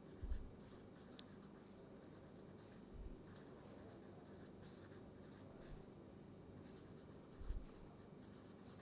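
Felt-tip permanent marker writing on paper: faint scratchy strokes, with three soft low thumps near the start, about three seconds in, and near the end.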